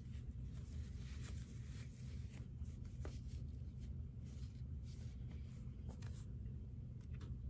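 Cotton sock fabric rustling and brushing against skin as it is pulled off a bare foot and handled; the rustling stops about six seconds in. A steady low hum runs underneath.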